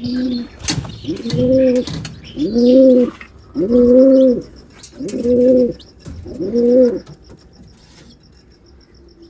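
Domestic pigeon cooing: six low, drawn-out coos repeated about once a second, then it stops.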